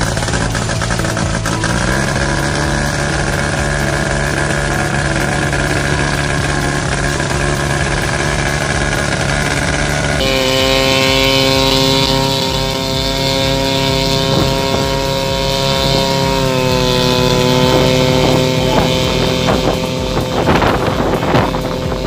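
Small piston engine of a homebuilt light aircraft running steadily at high power. Its pitch rises about two seconds in, the sound changes abruptly about halfway through, and the pitch dips a little later on.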